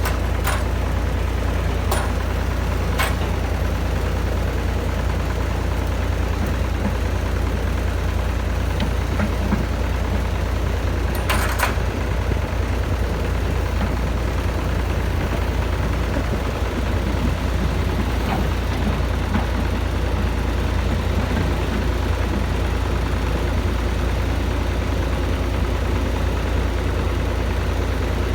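Heavy diesel engine of a working excavator running steadily, its sound concentrated in a deep low hum. A few sharp knocks come in the first three seconds, and a short burst of noise about eleven seconds in.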